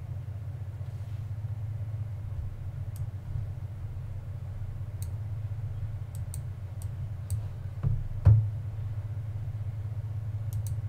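A steady low hum with light clicks scattered through it and one sharper knock about eight seconds in.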